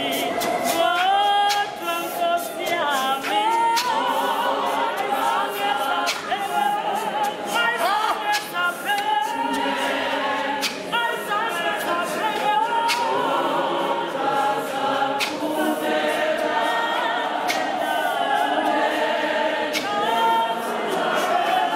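Church choir of men and women singing together unaccompanied, with occasional sharp knocks at irregular intervals.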